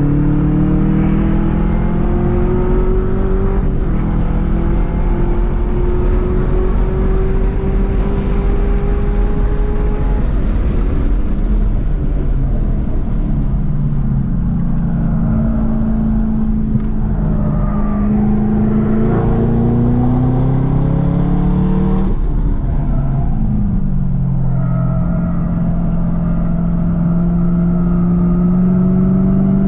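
Car engine heard from inside the cabin at speed on a race track, its pitch climbing steadily under acceleration and dropping sharply twice, about 4 s in and again about 22 s in, over constant road and wind noise.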